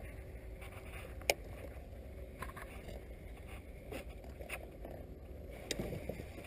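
Faint low rumble of a fishing boat sitting on the water, with a few light clicks and knocks; the sharpest click comes about a second in.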